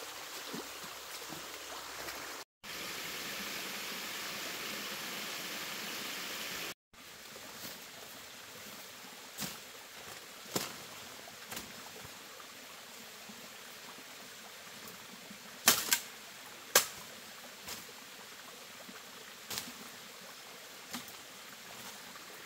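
Running stream water for the first several seconds, then a quieter forest background with scattered sharp snaps and cracks of brush and twigs as a man moves through undergrowth with a machete. The loudest snaps come as a close pair about two thirds of the way through.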